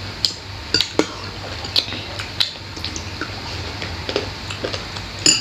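A metal spoon clinking against a bowl and plate during a meal: several sharp, separate clinks, the loudest near the end.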